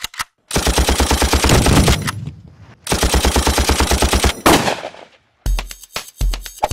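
Two long bursts of rapid automatic gunfire, each about a second and a half. Near the end, music with a pulsing bass beat begins.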